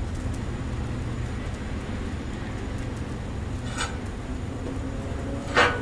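Steady low rumble, with a metal spatula striking the steel griddle top twice: faintly about four seconds in, then sharply just before the end.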